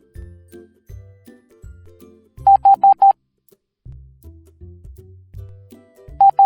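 Morse code beeps on one steady tone: four quick dots (the letter H) about two and a half seconds in, then two dots (the letter I) near the end, louder than the cheerful background music with a bouncing bass line that plays throughout.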